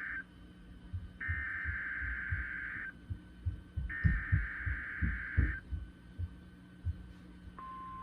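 Emergency Alert System header data bursts: the harsh, buzzy digital tones end one burst and then sound twice more, each about a second and a half long, announcing a new warning. Irregular dull low thumps sound through the middle, and near the end a steady single-pitched attention tone begins.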